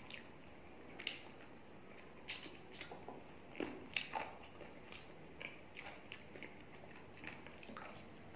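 Hand-eating sounds: fingers mixing rice into chicken curry gravy on a plate, with soft wet squishes and irregular short smacks and clicks, the loudest a little after a second in and around four seconds in.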